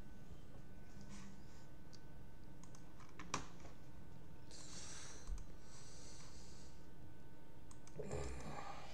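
Faint, scattered clicking of a computer keyboard, with a sharper click about a third of the way in and a couple of soft, brief rustles after it.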